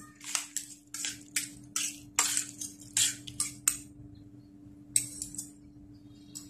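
Two metal spoons scraping and clinking against a stainless steel pan as minced pork with seasonings and toasted rice powder is stirred together, about two to three strokes a second. The stirring stops about four seconds in, with one more clink about a second later.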